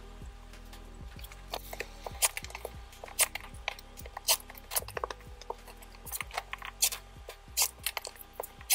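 Clear acrylic quilting ruler and folded cotton fabric being handled on a cutting mat, giving short, sharp taps and clicks about once a second as the ruler is set down and shifted, with light rubbing of fabric.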